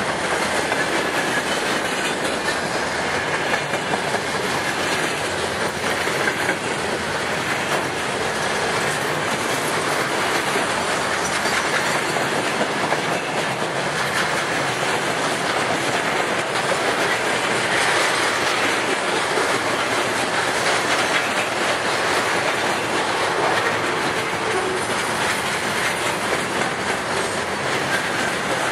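Freight wagons of a passing freight train rolling by close at speed, container flats and tank cars, their wheels on the rails making a steady, loud clatter.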